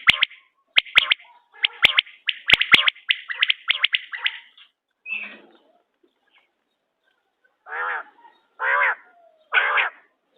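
Quail calling. A rapid run of short, high calls mixed with sharp clicks fills the first few seconds, then there is a pause. Three lower-pitched calls follow near the end.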